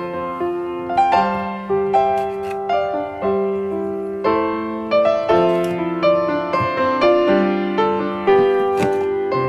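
Background music: a gentle piano tune, notes and chords struck one after another at an even, unhurried pace.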